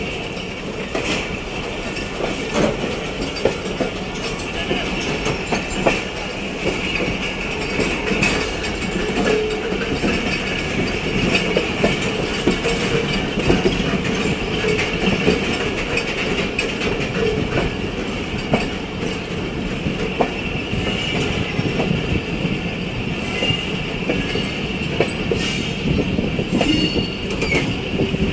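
Passenger train pulling out of the station, heard from an open coach doorway: steady wheel and running noise, with scattered clicks as the wheels cross rail joints and points.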